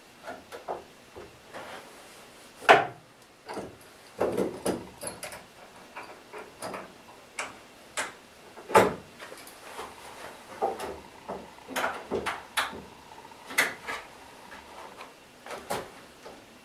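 Irregular wooden knocks and clicks as a freshly steamed rib is pressed into a wooden boat frame and clamped in place, with the loudest knocks about three and nine seconds in.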